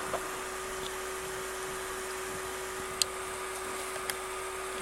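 A few sharp computer mouse-button clicks, the loudest about three seconds in and a lighter one a second later, over a steady hum with a constant tone.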